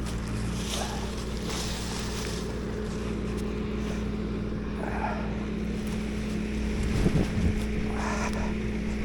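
Skid steer's diesel engine running steadily under work, with a few knocks and rattles about seven seconds in.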